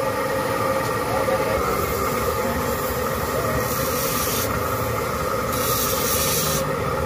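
Electric motors and large grinding wheels of a scissor-sharpening setup running with a steady hum and whine, and a hiss that comes and goes a few times.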